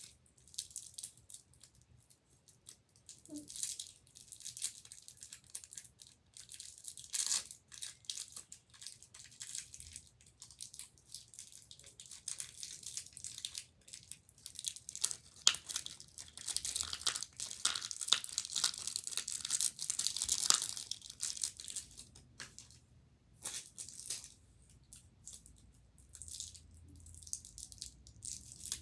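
Crinkly cellophane wrapper of a Smarties candy roll being twisted and torn open by hand: irregular crackling in short spells, busiest from about halfway to two-thirds of the way through.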